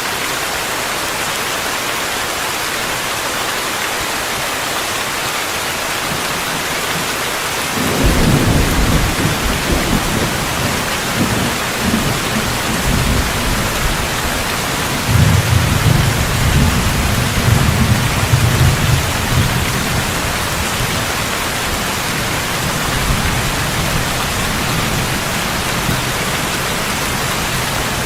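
Steady heavy rain hiss. About eight seconds in, a long, low thunder rumble breaks in, swells again partway through, and fades back into the rain.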